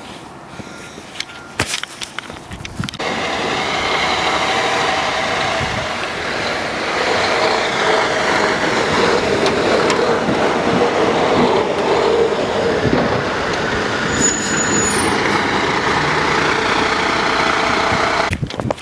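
Heavy snow-clearing vehicle engine running close by, loud and steady, coming in about three seconds in.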